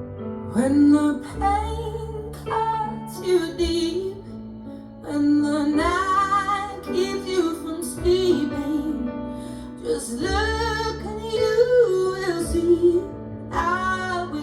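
Recorded pop ballad: a woman's voice singing a melodic line over instrumental accompaniment with steady low bass notes, with short pauses between phrases.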